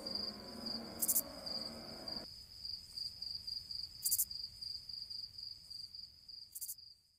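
Crickets chirping in a steady, fast-pulsing high trill, with three short higher buzzes a few seconds apart. The quiet tail of a plucked-string folk tune stops abruptly about two seconds in, and the crickets cut off at the very end.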